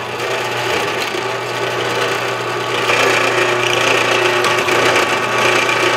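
Benchtop drill press running with a steady motor hum, its bit boring a hole through a metal bar; the cutting noise grows louder about three seconds in.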